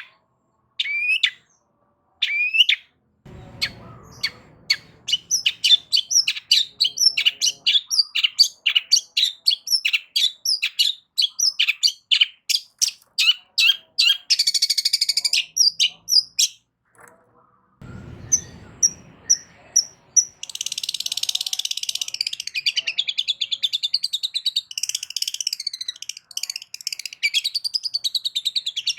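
Long-tailed shrike (cendet) singing loudly. It opens with a few separate rising calls, moves into a fast run of short sharp notes, pauses briefly, then breaks into a dense, continuous warbled song.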